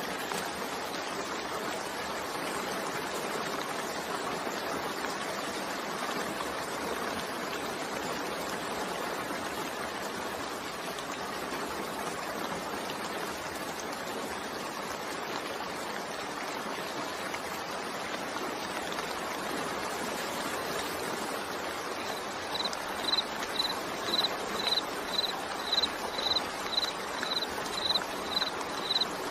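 Steady rain falling, an even continuous hiss. Near the end a high-pitched chirp starts, repeating about twice a second.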